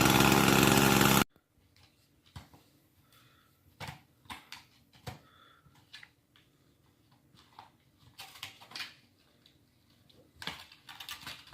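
Small gasoline engine, a chainsaw, running steadily, then cut off abruptly about a second in. Faint scattered clicks and knocks follow.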